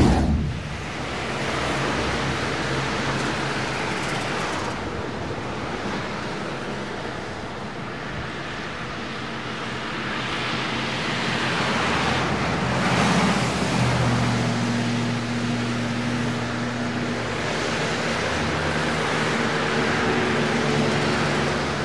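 Steady rushing roar of road traffic on a highway, swelling and easing, with a few low steady hums in the second half. It opens with a brief loud whoosh.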